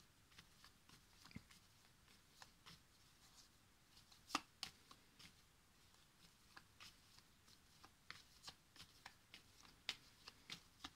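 A deck of oracle cards being shuffled by hand: faint, irregular flicks and slaps of the cards, the loudest about four seconds in.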